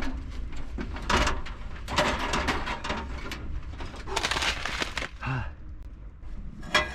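Strong wind buffeting the microphone: a steady low rumble with loud gusts, plus a few knocks and rustles.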